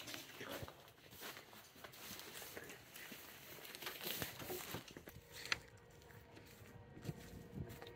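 Rustling and crinkling handling noises with scattered light knocks and clicks, one sharper click about five and a half seconds in; a faint steady hum comes in near the middle.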